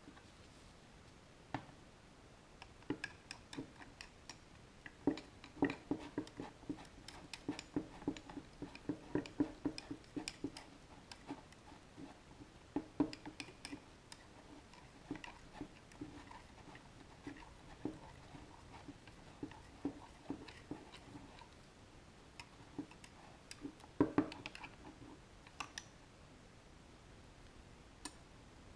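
Light irregular taps and clicks of tools and plastic containers being handled at a workbench during urethane casting, with a run of quick, hollow tapping about a third of the way in and a louder knock near the end.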